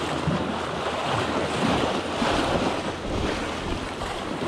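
Small waves washing and splashing against the boulders of a rock jetty, with wind buffeting the microphone.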